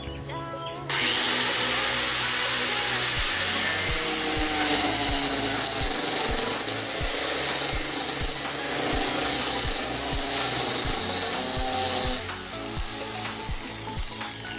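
Small cutting machine's spinning blade cutting into a piece of wood: a coarse, rasping grind with a high, steady whine, starting sharply about a second in and cutting off about twelve seconds in. Background music with a steady beat plays underneath.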